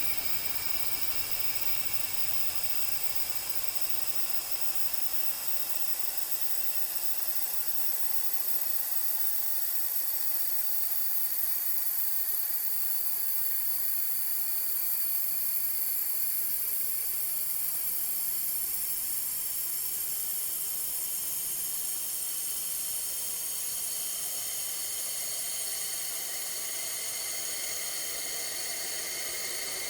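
Ominous ambient sound effect: a steady hiss of high, held tones layered together, swelling slightly in the middle and then easing back.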